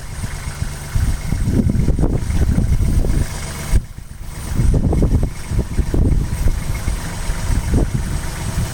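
Vehicle engine running at low speed, with a short lull a little under four seconds in.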